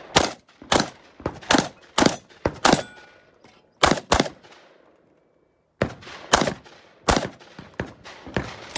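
Rapid shots from a Benelli M2 SP semi-automatic shotgun, about ten in quick runs, several spaced about half a second apart, with a short break of under a second midway.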